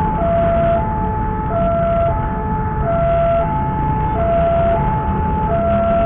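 Railway level-crossing warning alarm sounding a steady two-tone, high-low pattern, each note held about two-thirds of a second, the signal that a train is approaching. Motorbike and car engines run underneath.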